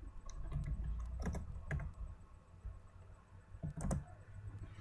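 Typing on a computer keyboard: a scattered run of key clicks, with a few louder clicks about a second in and again near the four-second mark.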